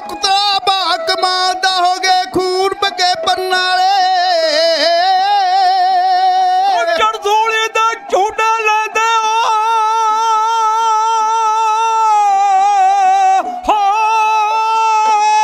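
A high voice singing a slow melody in long held notes that waver, with short breaks and pitch glides about seven seconds in and again near the end.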